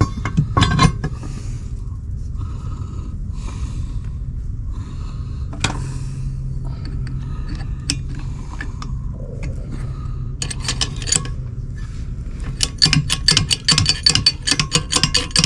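Metal hardware and tools being handled: scattered clicks and scrapes over a steady low hum, turning into a quick run of rattling clicks in the last few seconds.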